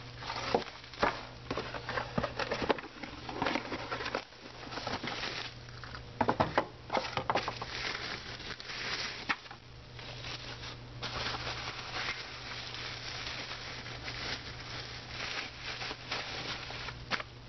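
Plastic bubble-wrap packaging crinkling and rustling as it is handled, with irregular small clicks and taps. A steady low hum runs underneath.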